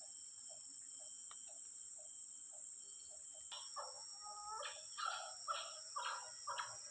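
A run of short, clucking animal calls starting about halfway through, over a steady high insect drone and a soft regular call repeating about twice a second.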